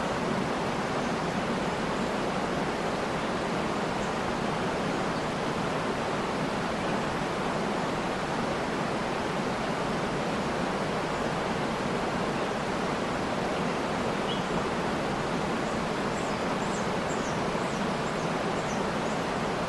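Waterfall rushing steadily, with a few faint, short bird chirps, most of them in a cluster near the end.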